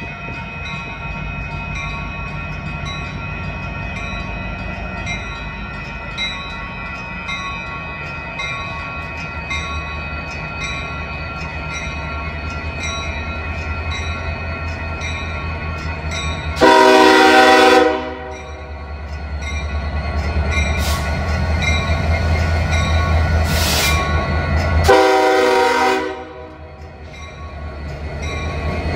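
Union Pacific 1983, a Western Pacific heritage EMD SD70ACe diesel locomotive, rumbling steadily and growing louder as it approaches at the head of a freight train. It sounds two loud horn blasts, one of about a second and a half roughly two-thirds of the way in and one of about a second near the end.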